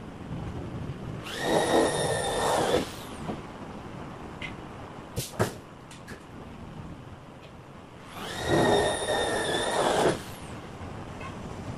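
Two bursts of compressed-air hissing with a whistling edge, each about two seconds long and the second about six seconds after the first, from an air tool on a workshop air hose. A few sharp metallic clicks fall between them.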